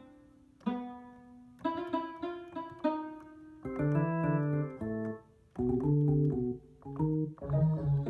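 Akai MPK Mini Play's built-in preset sounds played on its keys: a few struck santur notes that each ring and die away, then, about four seconds in, held organ chords on a drawbar organ preset, played in short stabs with brief gaps.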